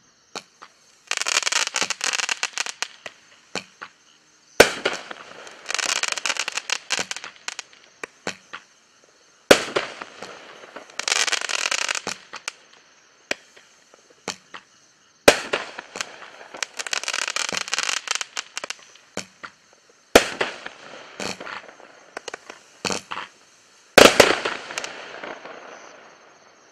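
Bright Star 'Crazy Like a Fox' 20-shot consumer fireworks cake firing. A sharp bang comes about every five seconds, and each is followed by two to three seconds of dense crackling from the bursting stars.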